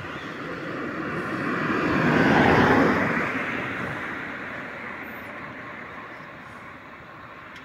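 A vehicle driving past on the road: the sound of its engine and tyres swells, is loudest about two and a half seconds in, then slowly fades away.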